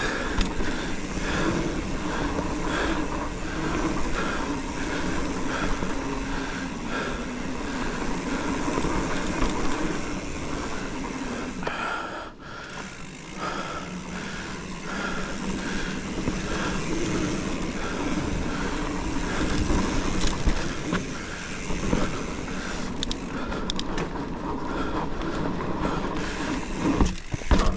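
Cro-Mag hardtail mountain bike with plus tyres being ridden along a dirt trail, giving a steady rolling rumble and rattle. The noise dips briefly about twelve seconds in.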